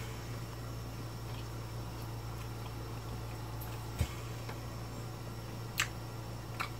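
Faint chewing and wet mouth clicks of a man eating steak, over a steady low electrical hum; a sharper click about four seconds in.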